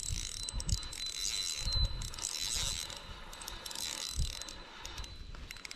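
Fishing reel being cranked in against a hooked fish on a bent rod: its gears whirr and click steadily, with a few dull knocks of handling underneath.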